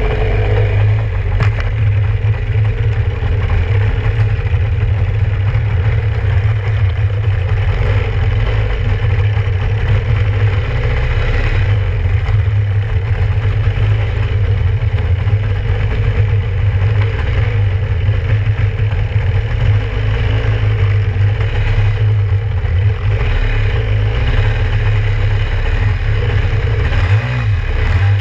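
Kawasaki 650SX stand-up jet ski's two-stroke twin engine running steadily at low speed, with a strong low rumble.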